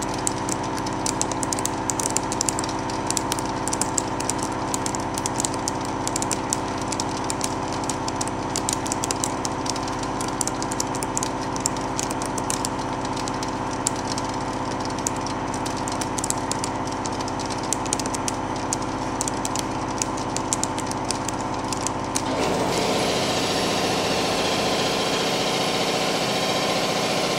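Mori Seiki CNC mill dry-cutting hot-rolled steel plate with carbide tooling: a steady multi-tone spindle whine with a constant crackle of hot blue chips being thrown off. About 22 seconds in, the sound changes to a louder, steadier rushing noise.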